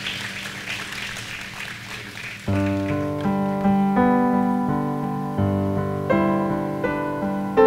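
Worship music: a fading hissy wash, then about two and a half seconds in a piano comes in playing slow, held chords, struck one after another.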